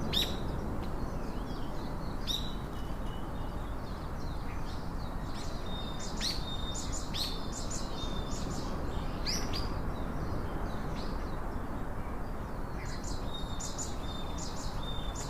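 Birds chirping: short, sharp calls scattered throughout, some ending in a brief held note, more frequent in the middle and near the end, over a steady low background hiss.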